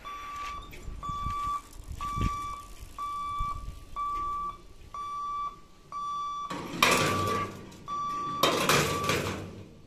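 Level-crossing warning buzzer beeping in even pulses of one high tone, about every three-quarters of a second, as the boom barrier closes for an approaching train. Near the end, two loud bursts of rushing noise sound over it.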